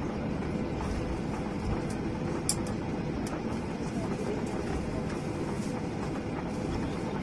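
Boeing 777's jet engines: a steady low rumble with a faint steady hum, unchanging in level.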